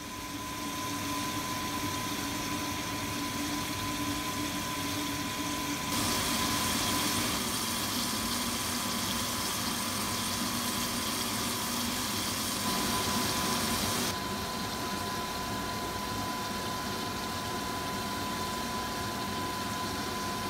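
Steady kitchen-appliance hum with a thin, high, even whine. From about six to fourteen seconds in, a brighter hiss rises over it: thin pork slices sizzling in a frying pan.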